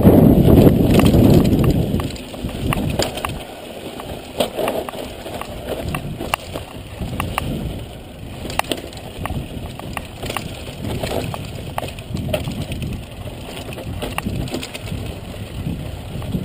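Mountain bike descending a dry dirt trail: tyres running over loose dirt and stones, with frequent sharp clicks and rattles from the bike over the bumps. Wind rumbles on the microphone, heaviest in the first two seconds.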